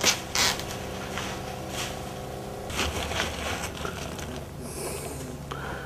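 Small anthill stones being handled by hand, clicking and scraping against each other as they are gathered up for grinding, with a few sharp clicks near the start and around three seconds in.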